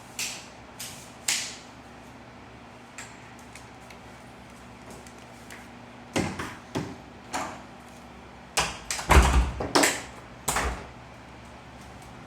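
Scattered knocks and clunks. A few light clicks come at the start, then louder knocks from about six seconds in, and a cluster of heavy thumps around nine seconds.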